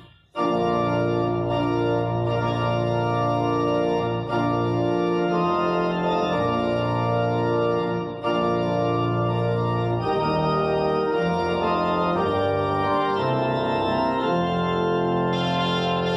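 Church organ playing a fanfare in full, sustained chords over a strong bass line. It resumes after a brief silent break right at the start, and the chords change every second or two.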